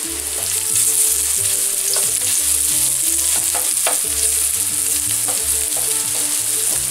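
Sliced onion sizzling in hot olive oil in a copper sauté pan, stirred with a wooden spoon that knocks and scrapes against the pan a few times. The onion is browning: the first stage of a risotto, before the rice is toasted.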